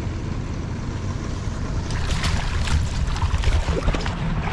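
Steady wind rumble on the microphone over river water; from about two seconds in, a burst of splashing as a hooked king salmon thrashes at the surface while being brought to the net.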